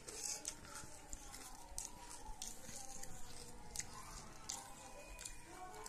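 Banslochan (tabasheer, bamboo silica) crystals being crushed under a thumb in the palm: irregular, sharp crunching crackles, some louder snaps among finer grinding.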